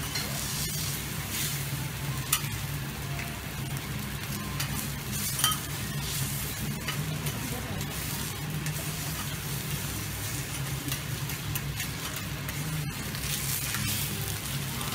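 Kobe beef steaks sizzling on a teppanyaki steel griddle, with a few sharp clicks of the chef's knife and fork striking the hot plate, the loudest about two and five seconds in.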